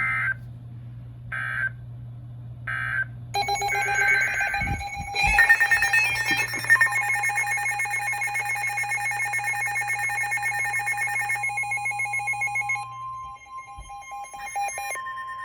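Weather radio emergency alert: three short warbling data bursts of an alert header, then several weather alert radios sounding their electronic alarm tones together, with one steady tone left sounding near the end, the signal that a new warning is about to be read.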